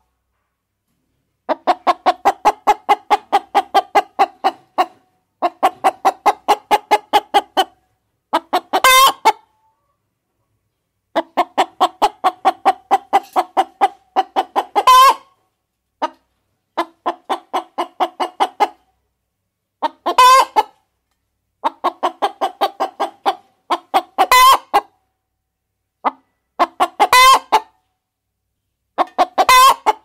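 Domestic hen cackling: rapid runs of clucks, several a second, with short pauses between runs. Many runs end in a louder, higher squawk.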